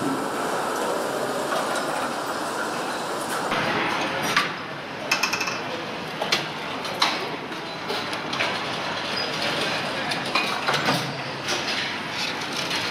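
Engine assembly line ambience: a steady machine hiss and hum, then from about four seconds in, scattered metallic clinks and knocks of engine parts and tools being handled.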